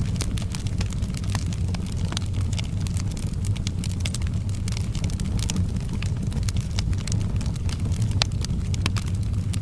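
Wood fire in a fireplace crackling, with many irregular sharp pops and snaps over a steady low rumble.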